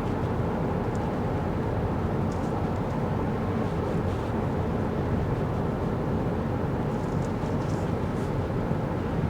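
Steady driving noise of a Kia Carnival Hybrid minivan on the move: an even rumble of tyres and wind, with a few faint light clicks now and then.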